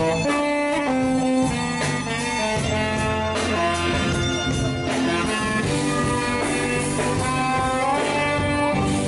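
Live band playing an instrumental passage of a 1970s song: a lead melody in held notes that step up and down over guitar and rhythm accompaniment.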